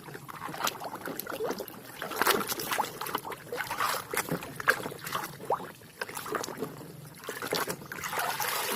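Muddy toy excavator being washed by hand: water splashing and trickling, with irregular small knocks and scrapes as it is scrubbed.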